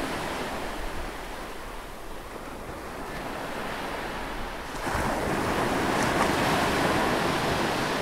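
A steady rushing noise, like surf, that swells louder about five seconds in.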